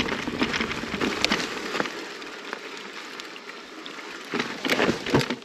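Mountain bike rolling over a rough bush trail: tyre noise and rattling with scattered sharp clicks, quieter for a couple of seconds in the middle, then a louder run of clatters near the end.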